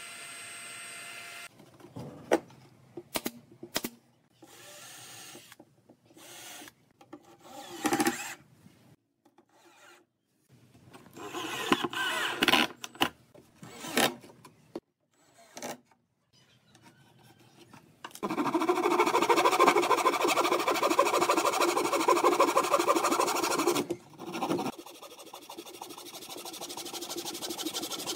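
Woodworking at a bench: a heat gun blowing briefly at the start, then scattered knocks and clicks and short bursts of a cordless drill driving screws into curved pine slats. About six seconds of loud, steady tool noise follow, and a handsaw begins cutting pine near the end.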